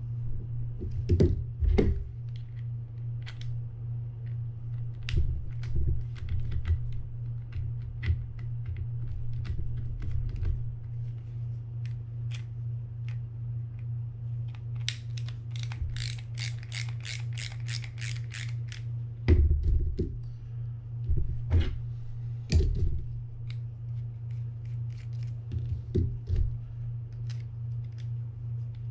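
Small clicks, taps and knocks of a screwdriver and the metal bail arm and housing of a Jarvis Walker EA 700 spinning reel as the bail arm screws are undone, with a quick run of about a dozen even clicks, some three a second, about halfway through. A steady low hum lies underneath.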